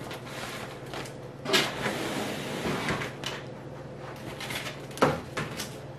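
Handling noises as a balloon arrangement and items on a table are moved: a knock about a second and a half in, followed by rustling and rubbing for over a second, then a sharp knock about five seconds in. A low steady hum lies under it.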